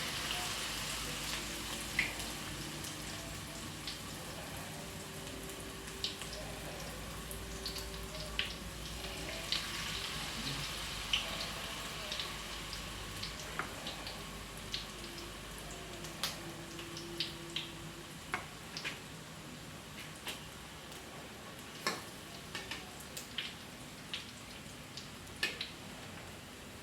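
Food frying in hot oil in a pan: a steady sizzle with irregular crackles and pops throughout.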